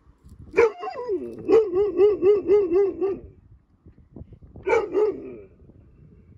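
Husky giving drawn-out, wavering cries: one that falls in pitch about half a second in, then one that wobbles about four times a second for around a second and a half, and a shorter cry about five seconds in.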